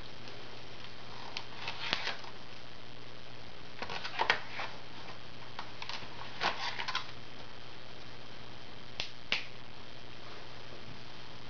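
Plastic Crayola Super Tips markers clicking and tapping against each other as they are picked up from and set down in their row, in a few scattered clusters of sharp clicks. Underneath, a steady hiss and a faint low hum.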